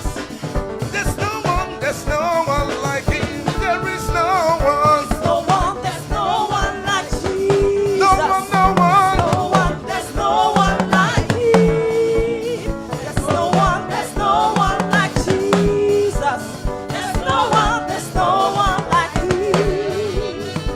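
Gospel choir singing with a live band, a drum kit keeping a steady beat under moving bass notes.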